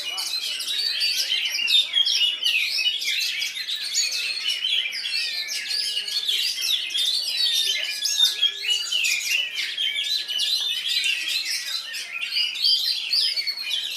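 Several oriental magpie-robins (kacer) singing at once in a dense, continuous tangle of rapid chirps and trills, with a few long level whistles in the middle.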